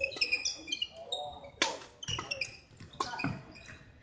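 Badminton rally: sports shoes squeaking on the wooden court floor as players move, with sharp racket strikes on the shuttlecock, one about a second and a half in and two around three seconds in.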